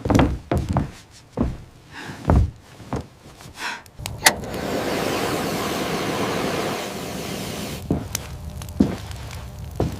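A run of heavy thuds, several a second apart, then a sharp knock about four seconds in, followed by a steady rushing noise that lasts about three seconds and then falls quieter, with a few more thuds near the end.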